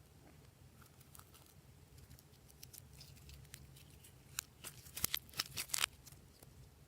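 Glossy slime being worked by hand, giving small sticky clicks and pops, with a quick run of louder pops about two-thirds of the way through.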